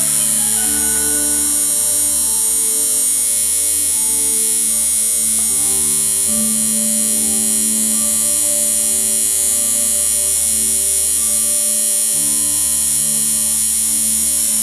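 Electric tattoo machine buzzing steadily as it works ink into skin, with music underneath.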